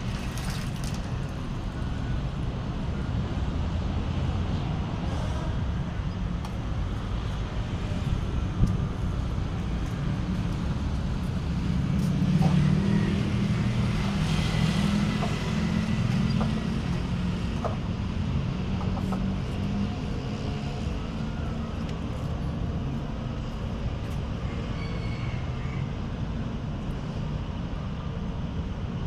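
Steady low engine rumble, swelling louder for a few seconds near the middle, with one sharp knock about eight and a half seconds in.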